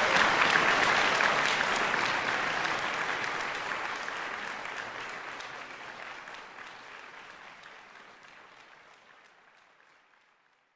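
Applause from a crowd, many hands clapping, fading steadily away over about ten seconds.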